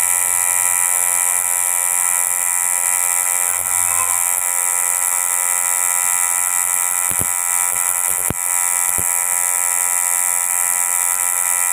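Tattoo machine with a cartridge needle running with a steady electric buzz while it inks lines into skin. A few light clicks come about two-thirds of the way through.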